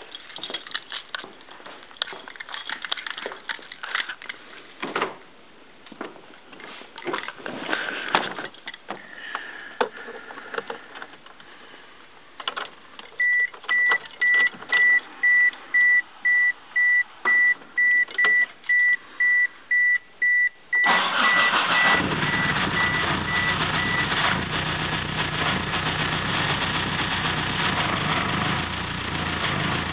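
Clicks and knocks of someone getting into the car, then a car's warning chime beeping about twice a second for around eight seconds. About 21 seconds in, the Eclipse GSX's 6-bolt 4G63 turbo four-cylinder starts and settles into a steady idle; the owner wants to know whether its nasty ticking is lifter tick, which fresh 3G lifters have not cured, or something worse.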